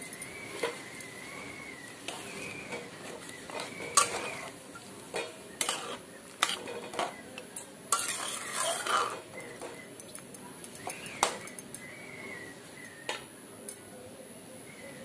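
A metal spoon stirring a thick chicken and potato curry in a metal kadai, clinking and scraping against the side of the pot in a run of irregular knocks, with a longer wet stirring sound about halfway through.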